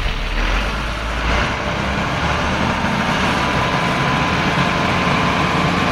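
Fire tanker truck's engine running steadily under a continuous hiss, its engine note shifting up about a second and a half in as the engine speeds up.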